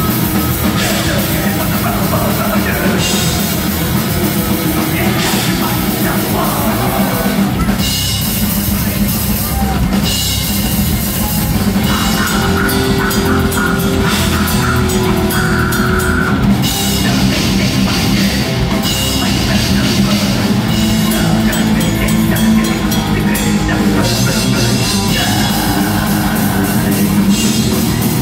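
Heavy metal band playing live through the venue's amplification: loud distorted guitars over dense, fast drumming.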